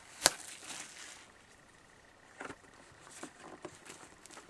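A hockey trading-card box and its packaging being handled: one sharp click about a quarter second in, light rustling for about a second, then a few soft taps.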